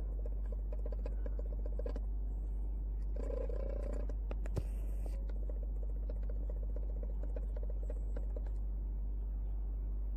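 A steady deep rumble, with faint quick ticking over it and a single sharp click about halfway through.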